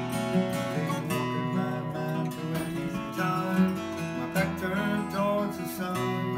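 Acoustic guitar strummed, chords ringing in a steady rhythm.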